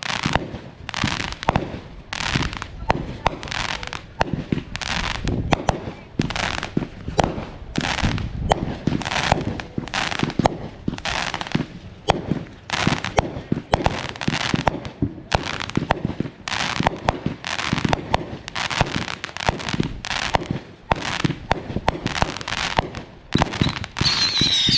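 Consumer fireworks going off in quick succession, sharp bangs about two to three a second, with a high whistling firework starting near the end.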